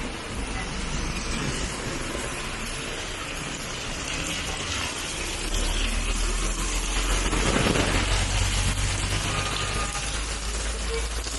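Heavy rain falling steadily, with a low rumble that grows stronger from about halfway through.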